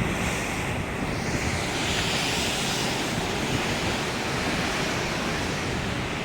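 Sea surf washing over a rocky shore, with wind buffeting the microphone; the hiss of the water swells about two seconds in and then eases.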